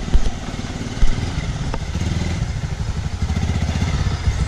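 Motorcycle engine running at low revs with a steady pulsing beat as the bike creeps slowly along, the note growing stronger after a couple of seconds. Two heavy thumps stand out within the first second or so.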